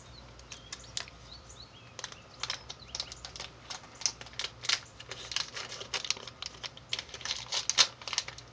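Irregular light clicks and taps of handling close to the phone's microphone, sparse at first and growing denser about two seconds in.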